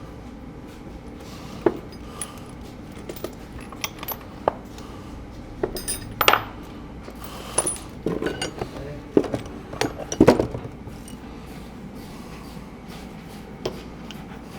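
Scattered metallic clinks and clanks of hand tools being handled, a few sharp strikes ringing briefly, the loudest about six and ten seconds in.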